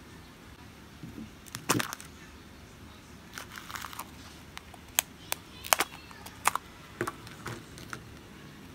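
Hard plastic capsule egg being handled and pulled apart: a loud cluster of plastic clicks and crackles just under two seconds in, then a run of scattered sharp clicks and snaps.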